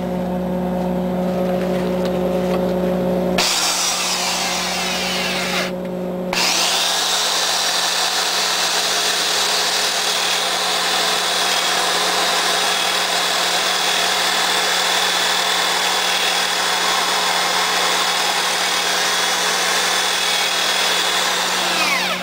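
Power tool spinning a wire brush against the freshly welded muffler, scrubbing the weld beads clean. It starts about three seconds in after a steady low hum, changes briefly around six seconds, then runs as a steady high whine with scraping hiss before winding down at the very end.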